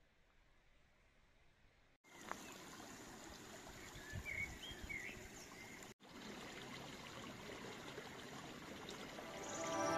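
Silence for about two seconds, then faint outdoor ambience: a steady rushing hiss like a running stream, with a few short bird chirps around the middle. Music fades in right at the end.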